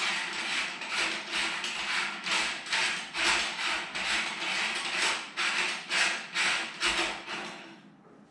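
Threaded camera adapter being unscrewed by hand from a telescope adapter ring: a repeated rasping scrape of the threads, about two twists a second, that stops shortly before the end.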